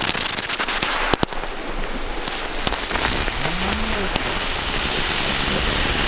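A string of firecrackers going off in a fast crackle of pops, with one sharper bang about a second in, then a steady hiss.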